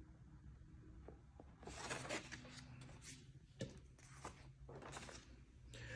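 Faint rustling and sliding of paper and card sheets being handled on a glass tabletop, with a few light taps.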